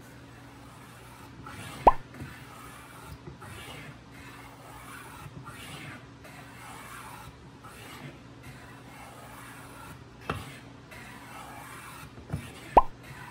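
Sharp hand plane cutting a chamfer along a wooden cutting board's edge: a run of short rasping strokes about one a second, broken by three sharp knocks, the loudest near the end.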